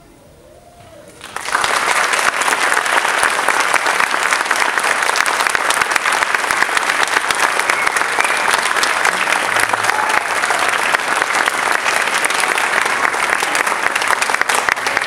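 An audience clapping. After a short hush the applause starts suddenly about a second and a half in and keeps on loud and steady.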